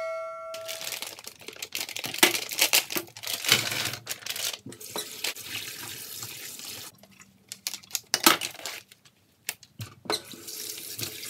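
Kitchen tap running into a stainless steel sink while hands rinse raw shrimp in a bowl, with splashing and clatter. About seven seconds in the water stops for a few seconds with a few sharp knocks, then runs again near the end. A short electronic chime rings at the very start.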